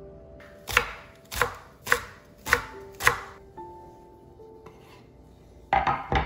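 A kitchen knife chopping green onions on a wooden cutting board: five sharp chops at about two a second, then a short clatter near the end. Soft background music plays under it.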